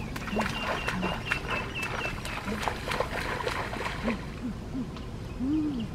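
Tall grass rustling and crackling as someone walks through it, with repeated short low calls and, during the first couple of seconds, a thin high chirping.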